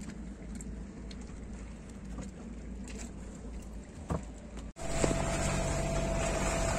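Sailboat under way: a steady low rumble with wind and water noise. About three-quarters of the way through, a cut brings in a louder, steady engine drone with a constant whine above it.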